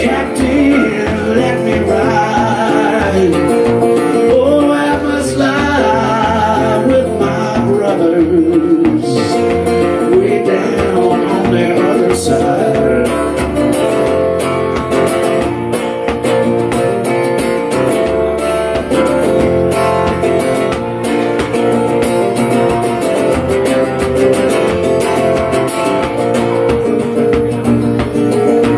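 Sunburst archtop guitar played live as a solo instrumental blues break, with some notes bent in pitch early on.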